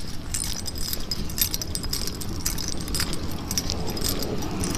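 Light metallic jingling and clinking, many small irregular clicks, over a steady low rumble of movement.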